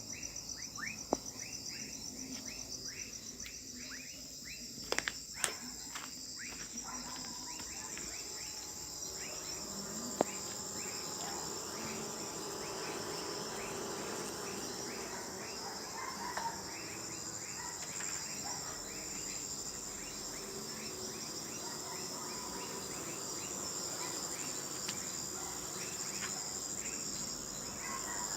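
Night insects, crickets, calling in a steady high-pitched trill. A second caller repeats short falling chirps a few times a second underneath, with a few sharp clicks in the first part.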